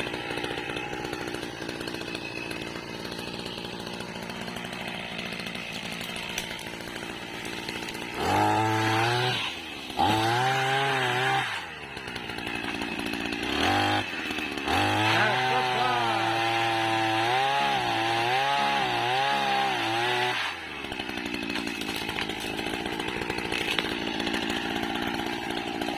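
Small two-stroke engine of a motorized oil-palm pole pruner (egrek mesin) running at low speed. From about 8 s to 20 s it is revved hard in several bursts, its pitch rising and falling, with brief drops between them. It then settles back to a lower, steady run.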